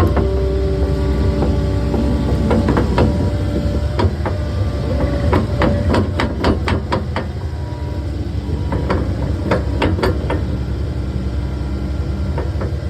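Takeuchi skid steer's engine running under work, with repeated sharp metallic clanks and knocks from the machine as it moves dirt, coming in quick clusters around six to seven and nine to ten seconds in.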